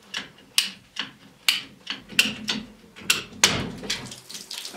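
Ratcheting plastic-pipe cutter clicking with each squeeze of the handle, about two clicks a second, as it works through a plastic water pipe. About three and a half seconds in comes a louder crunch as the cut goes through, then a hiss of water escaping from the cut pipe.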